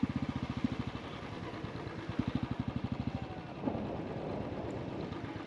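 Motorcycle engine idling with an even, quick putter, a little louder about two seconds in; the firing stops about three and a half seconds in, as if the engine were switched off.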